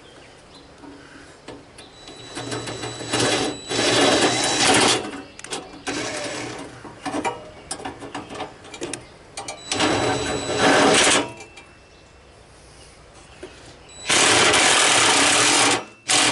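Cordless drill driving a self-tapping screw in several short bursts of running, the longest near the middle and end, pausing in between.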